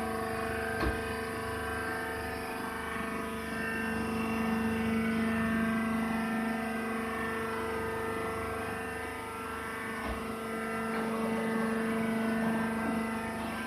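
Wood sawdust baler machine running with a steady droning hum made of several held tones, and a single sharp knock about a second in.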